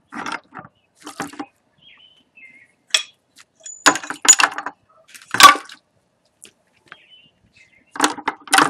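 Metal sailboat steering hardware being laid into a plastic bucket of diesel fuel to soak: an irregular series of clinks and clunks as the parts knock against each other and the bucket. The loudest knock comes about five and a half seconds in, and a quick cluster comes near the end.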